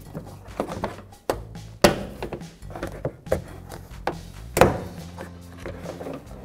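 Plastic trim clips of a 2010 Toyota RAV4 liftgate panel being pried out with a trim tool: a series of separate sharp clicks and thunks, the loudest about two and four and a half seconds in, over soft background music.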